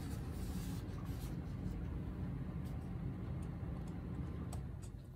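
Hands rubbing and shifting over paper and a wooden board, a soft scuffing with a few light clicks near the end, over a steady low rumble.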